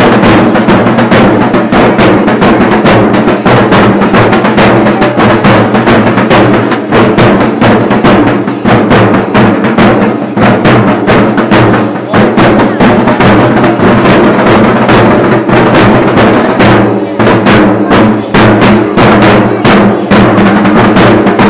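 A group of chenda drums beaten with sticks in a fast, dense, unbroken rhythm, very loud.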